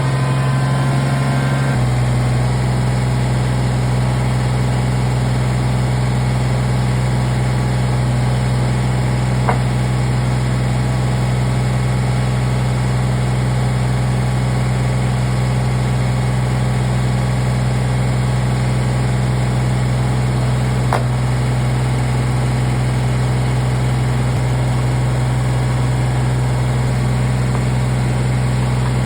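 Kubota BX23S tractor's three-cylinder diesel engine running steadily at idle. Its tone shifts slightly about two seconds in. Two sharp clicks are heard, one about a third of the way through and one about two-thirds in.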